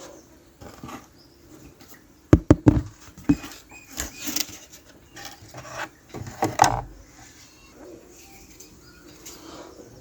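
Small plastic toy pieces being handled and clicked together: a quick cluster of sharp clicks and knocks a little over two seconds in, then lighter taps and rustling.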